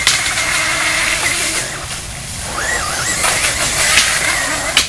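Brushless electric motor of a hydroplaning RC monster truck whining as it skims across standing water, over the steady hiss of water spray. The whine holds steady, drops away about two seconds in, then swoops up and down with the throttle before steadying again.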